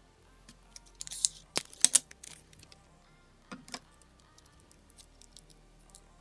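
Clicks, light metallic clinks and rustling from handling X-Acto knife blades and tape, bunched about one to two seconds in and again briefly past the middle.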